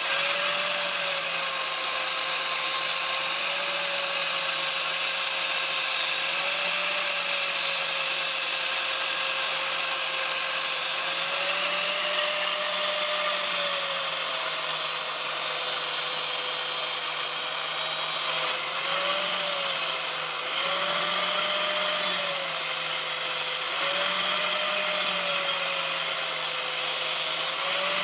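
A handheld electric power tool working on metal, its motor running steadily with a brief lift in pitch every few seconds over a continuous hiss.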